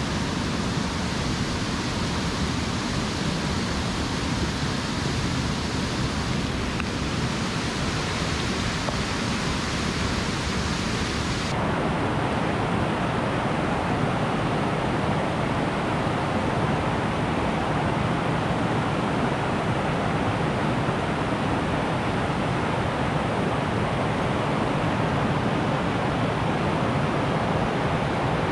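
Mountain stream water rushing steadily over rocks. About eleven seconds in, the sound abruptly changes to a fuller, less hissy rush, as from a different stretch of the stream.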